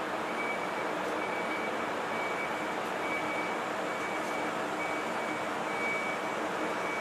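A small 12-volt air compressor running steadily as it inflates a motorcycle tire, with a faint high tone that comes and goes about once a second.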